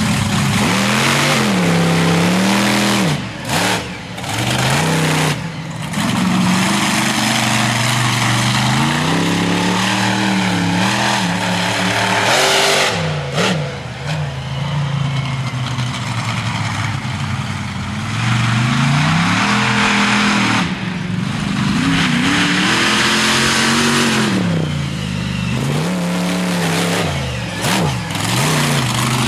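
T-Maxx monster truck's engine revving hard again and again, its pitch climbing and falling over and over, with a few brief drops in level.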